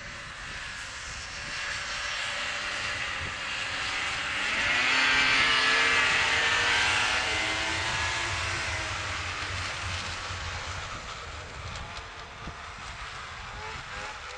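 Airplane flying over. Its engine drone swells to its loudest about halfway through, drops in pitch as it passes, then slowly fades.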